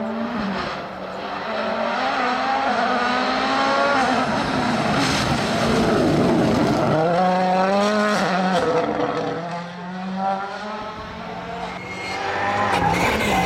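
Rally car engine revving hard through the gears, its pitch climbing and dropping back with each shift, with some tyre noise underneath.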